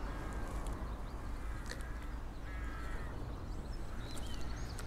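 Birds calling over a low steady rumble: a longer call about halfway through, then short high chirps near the end.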